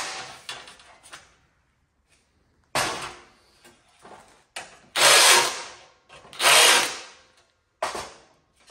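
Cordless drill boring spot-weld holes through a small piece of sheet steel in about four short bursts, with near quiet between.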